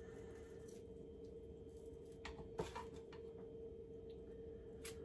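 A chef's knife and hands working a shallot on a wooden cutting board: a few light clicks and knocks about two and a half seconds in, over a faint steady hum.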